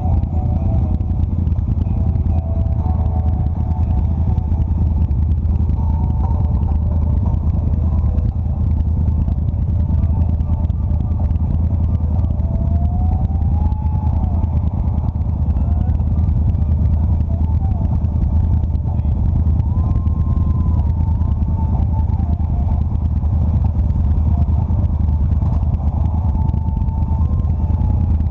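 Cruiser motorcycle engine running steadily at cruising speed, a continuous low rumble, with other motorcycles in a riding group around it and a few faint rising and falling tones from engines changing speed.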